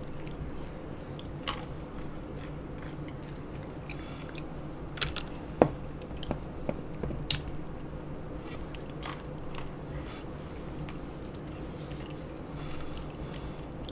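Pistachio shells being cracked open by hand and the nuts chewed: scattered sharp cracks and clicks among quiet chewing, over a steady low hum.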